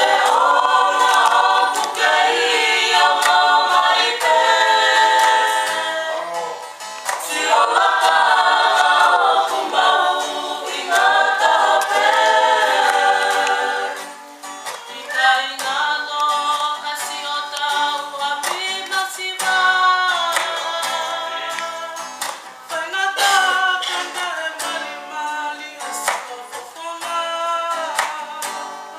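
Several voices singing a song together, accompanied by strummed acoustic guitar. The singing is strong in the first half and grows softer about halfway through.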